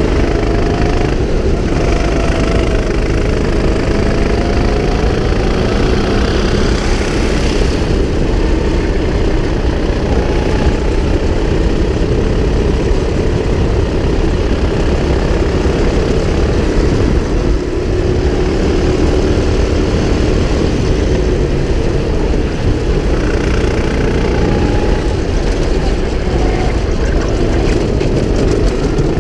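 Kart engine running hard, heard from the driver's seat, its pitch rising and falling with the throttle through the corners over a dense low rumble.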